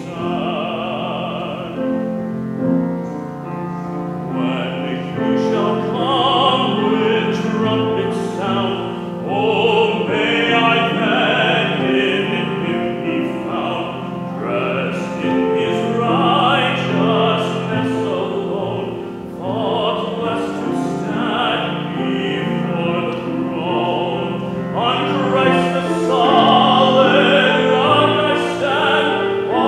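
A male soloist singing in a classical, operatic style, with sustained instrumental accompaniment underneath.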